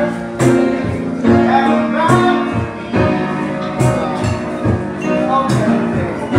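Music: a song with a singer over instrumental backing and a steady beat.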